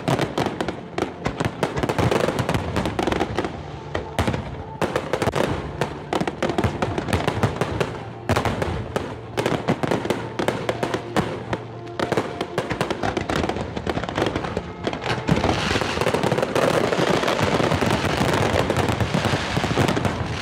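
Fireworks bursting in quick succession, with music playing underneath; the bursts thicken into a dense barrage over the last few seconds.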